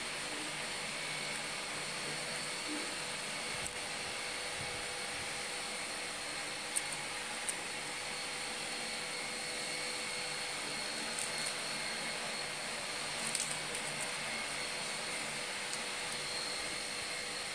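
Steady whirring hum and hiss of a running appliance, with a faint high whine and a few faint light clicks.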